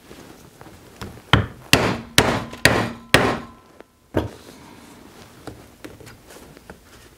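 Leather hole punch struck with a mallet, driving through belt leather into a poly cutting board: five sharp blows in quick succession, then one more about a second later.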